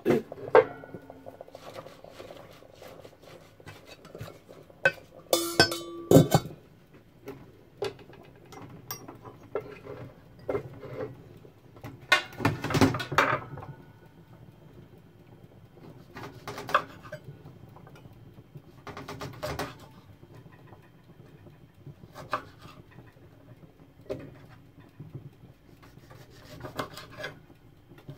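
Kitchen handling sounds: scattered knocks, clatter and rubbing on a wooden chopping board as a knife slices a lemon, with a ringing metallic clank about six seconds in, typical of a stainless steel lid going onto a pot.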